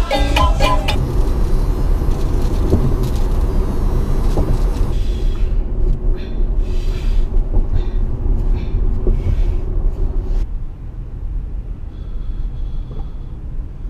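Steady low road and tyre rumble inside the cabin of a moving Tesla Model X, which has no engine note to hear. A pan flute and ukulele tune ends about a second in. The rumble changes abruptly about five seconds in and drops quieter about ten seconds in, as separate takes are joined.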